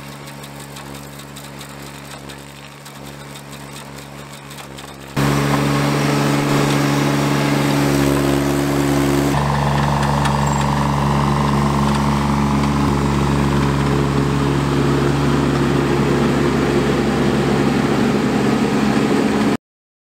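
Tracked mini skidsteer's engine running steadily. It is faint at first and much louder from about five seconds in. A higher whine joins about nine seconds in, and the sound cuts off abruptly just before the end.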